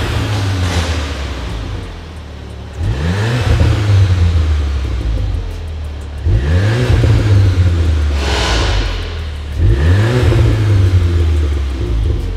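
VW Polo GTI (AW)'s turbocharged four-cylinder 2.0 TSI blipped through an APR stainless-steel cat-back exhaust with the car standing still. It revs three times, about three and a half seconds apart; each time the pitch climbs quickly, holds briefly and falls back to idle.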